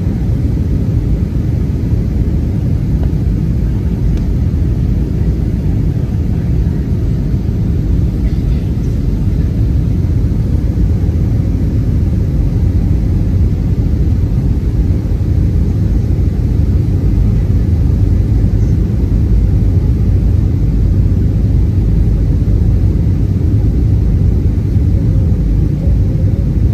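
Steady low rumble of Boeing 737-800 cabin noise heard from a seat behind the wing on descent: the CFM56-7B engines and the rush of air along the fuselage.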